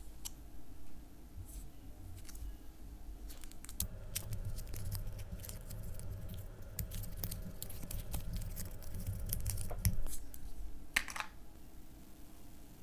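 Hands handling and unwinding a coiled Apple USB-C to Lightning charging cable: light clicks and rustling. The sounds are sparse at first, busiest in the middle, with a couple of sharp clicks near the end.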